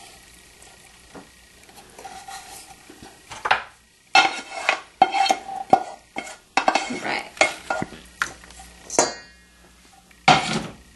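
A utensil clinking and scraping against a pan and a mixing bowl as a pasta casserole mixture is scraped in and stirred. A few seconds of quiet give way to a run of irregular knocks, some with a short metallic ring.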